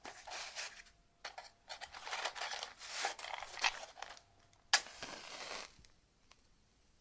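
Irregular bursts of rustling, crinkling noise, with one sharp click a little before five seconds in, then about a second of steadier rustle that stops.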